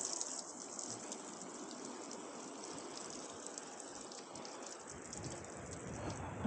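Outdoor beach shower running: water spraying and spattering steadily on the ground.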